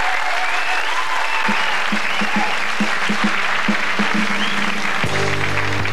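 Studio audience applauding. From about a second and a half in, a repeating low note pattern plays under the clapping. Near the end the band comes in with sustained chords.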